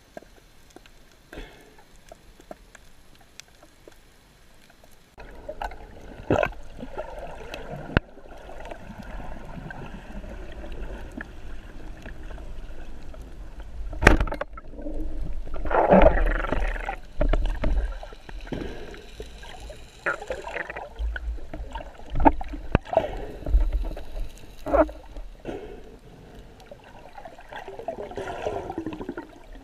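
Underwater sound picked up through an action camera's housing: muffled rushing and gurgling water from the swimmer's movement. It swells from about five seconds in, with scattered sharp knocks and clicks.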